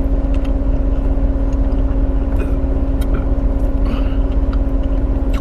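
Steady low rumble and hum of a parked car's engine idling, heard from inside the cabin, with a constant humming tone over it and a few faint small clicks.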